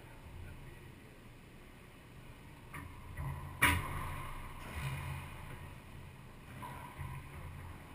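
Racquetball rally: a few sharp cracks of racquets hitting the ball and the ball striking the court walls, ringing in the enclosed court. The loudest crack comes about halfway through.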